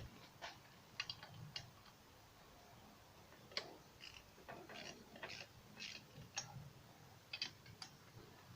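Scattered light clicks and clinks at irregular intervals, some in quick little clusters: hand tools and small parts being handled while a Puch E50 moped engine's top end is taken apart.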